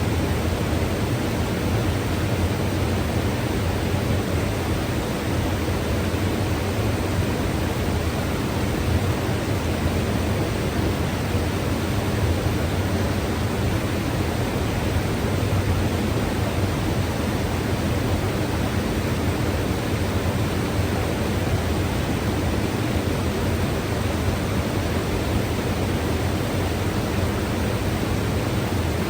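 Mountain river rushing steadily, a constant full-band roar of flowing water, heaviest in the low end.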